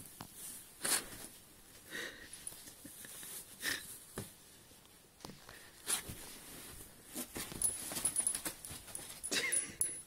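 Siberian husky under a bed sheet giving a few short, quiet vocal noises and breaths, mixed with the soft rustle of the sheet being pushed about.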